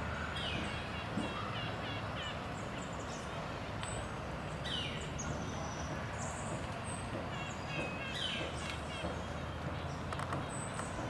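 Wild birds calling and chirping over a steady low hum of distant traffic. Short downward-sweeping calls come back about every four seconds, between runs of quick chirps and a few thin high whistles.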